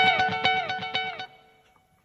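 Electric guitar played through the Zoom G1X On's Dual Digital Delay effect: held notes with a fast train of echo repeats that slide down in pitch. The repeats fade out a little over a second in.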